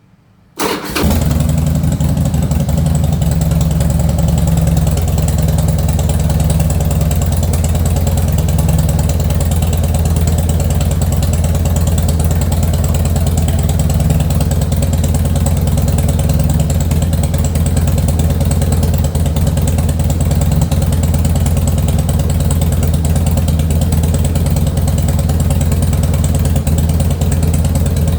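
Harley-Davidson Heritage Softail's V-twin engine starting: a brief crank on the starter, catching about a second in, then idling steadily with a deep, even rumble.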